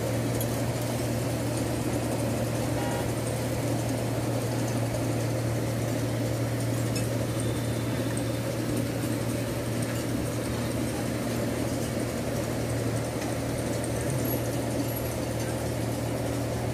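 Road milling machine's diesel engine running steadily with a constant low hum, as its conveyor loads broken-up road material into a dump truck.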